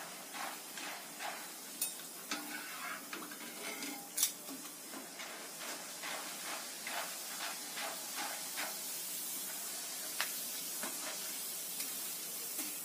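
Peanuts and fried gram deep-frying in hot oil in a wire mesh frying basket: a steady sizzle, with frequent clicks and scrapes as a perforated metal ladle stirs them against the mesh.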